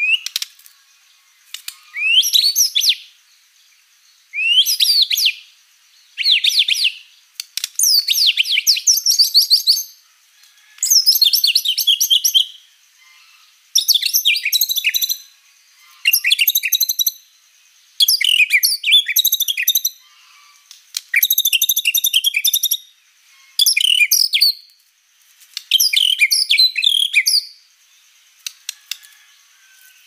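White-rumped shama singing a long series of loud, varied whistled phrases, about a dozen of them, each a second or two long with short pauses between. A few sharp clicks fall in the gaps near the start and end.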